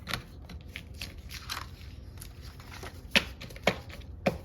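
Paper planner pages being handled and pressed onto a disc-bound planner: scattered sharp clicks and paper rustles, the loudest click about three seconds in.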